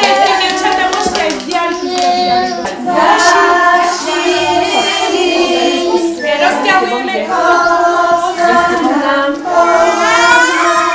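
A group singing a children's song, with some hand clapping.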